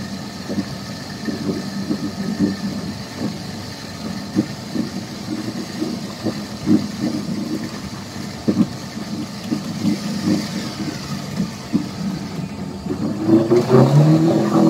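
Suzuki Jimny's engine running at low revs while stuck deep in mud, with irregular knocks over it. Near the end the revs climb to a louder, higher steady note.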